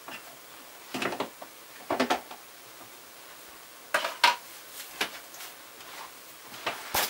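Clinks and clatter of small hard objects being handled and set down, in five or six separate knocks, the loudest a little past the middle.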